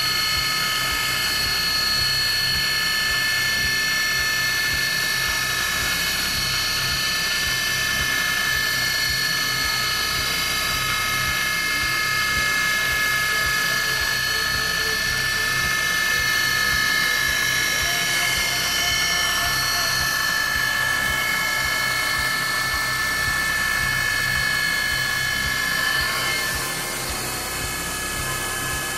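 ProtoTrak DPM3 CNC mill engraving metal: the spindle and small engraving cutter run with a steady high-pitched whine of several tones. The whine becomes quieter about 26 seconds in.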